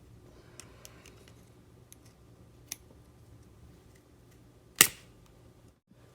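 Small plastic clicks and taps of RC drive-shaft parts being handled and forced together: the pronged ball on a Traxxas Slash drive shaft being pressed into a plastic differential yoke. Near the end comes one loud, sharp snap.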